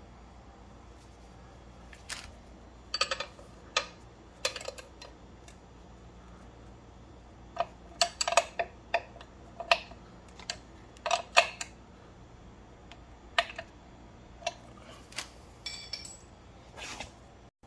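Irregular metallic clicks and clinks of a hand tool working the swingarm chain adjuster bolt, in short clusters that come thickest about halfway through.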